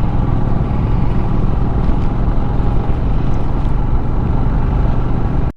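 Royal Enfield Himalayan's 411 cc single-cylinder engine running at a steady cruise while riding, heard together with steady wind and road noise.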